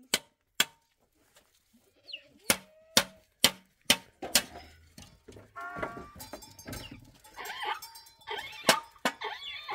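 Sharp knocks of a hand tool striking, several in a row about half a second apart, as a shovel is worked on with a hatchet. From about halfway on, goats bleat, with one more knock near the end.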